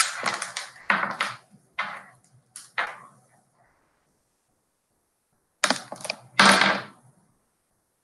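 Short bursts of clattering, rattling noise picked up by an open video-call microphone: a few in the first three seconds, then another cluster about six seconds in, with dead silence between as the call audio cuts in and out.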